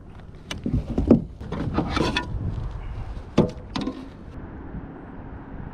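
Handling noise aboard a fishing kayak while a freshly caught bass is dealt with: a few sharp knocks and clicks among rustling and thumps over a low rumble.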